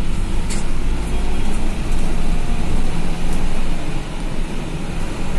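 Medium-size intercity bus running on the road, with a steady rumble of engine and road noise. There is a single short click about half a second in.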